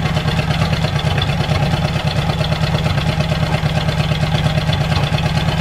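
Ford flathead V8 engine of an old farm irrigation pump unit idling steadily with a fast, even beat. The owner reckons it has a couple of valves stuck open.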